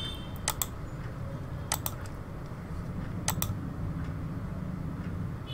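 Computer mouse button double-clicked three times, each a quick pair of sharp clicks, over a steady low hum.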